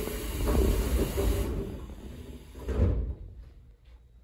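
Sliding passenger doors of a JR Kyushu 811 series electric train car working at a station stop, with a rush of air that fades and a thud about three seconds in.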